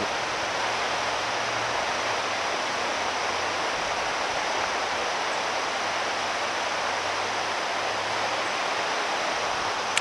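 A shallow rocky river running over stones, a steady, even rush of water.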